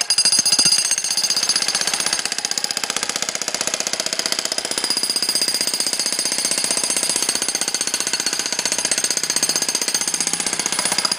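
Jackhammer hammering continuously in a fast, even train of blows, starting abruptly and cutting off near the end.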